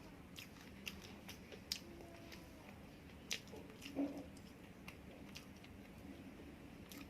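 Quiet close-up chewing, with scattered wet mouth clicks and smacks; the loudest smack comes about four seconds in.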